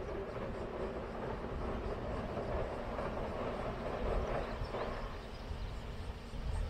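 Distant Yosan Line train running over a steel girder railway bridge: a low rumble that swells and then fades out about five seconds in.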